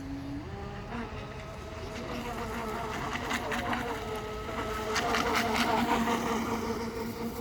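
Aquacraft P-27 Gunslinger radio-controlled model boat running on the water: its motor gives a buzzing whine that steps up in pitch with throttle, growing louder toward the middle of the run with water hiss from the hull, then easing off near the end.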